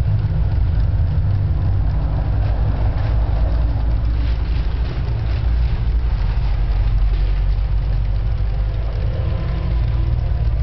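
Many cuckoo clocks ticking out of step, a faint uneven clatter of clicks under a loud, steady low rumble.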